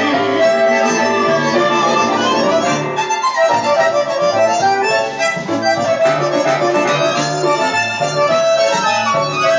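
Instrumental passage of a milonga, with an accordion-type squeezebox carrying the melody over a steady, bouncing bass line.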